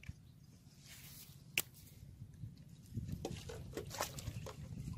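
Handling noise of plastic bottle fish traps and a caught fish at the water's edge. There is a single sharp click about a second and a half in, then from about three seconds in a run of small irregular clicks and crackles over a low rumble.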